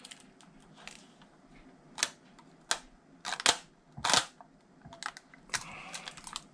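Kapton tape being pulled off its roll and pressed down onto a battery pack: several short rasps and crackles with quiet gaps between.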